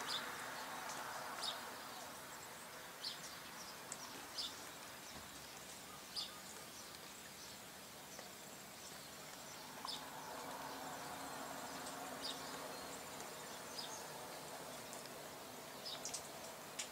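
Quiet outdoor evening ambience: a faint steady hiss with short, high chirps every second or two, and a faint low drone for a few seconds past the middle.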